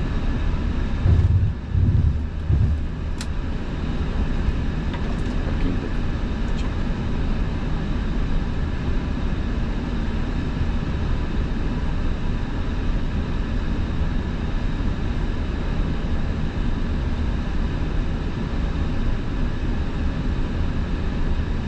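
Steady low hum inside the Airbus A350-900 flight deck as it holds on the runway, its Rolls-Royce Trent XWB engines at idle, with a few low thumps between one and three seconds in.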